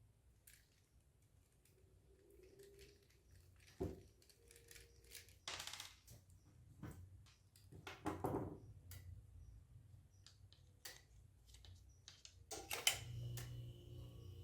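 Faint scattered clicks, taps and short scrapes of small hard parts and a tool being handled on an opened laptop while its hard drive is detached and unscrewed. A sharp click near the end is the loudest.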